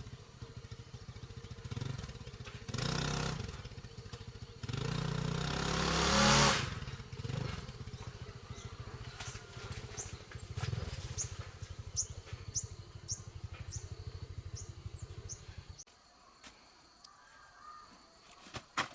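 Small motorcycle engine running with a fast, even putter, revved up twice in the first few seconds, then cut off suddenly about three seconds before the end.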